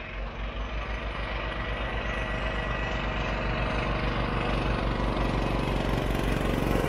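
1967 Ski-Doo Olympique snowmobile's 250 cc single-cylinder two-stroke engine running as the sled approaches. Its pulsing exhaust note grows steadily louder as it draws near.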